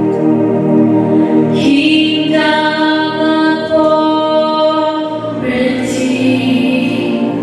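Music with singing voices: long held notes, the chord changing about two seconds in and again near the end.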